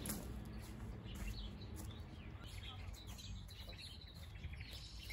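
Birds chirping in short, repeated calls over a faint, steady low rumble of outdoor background noise.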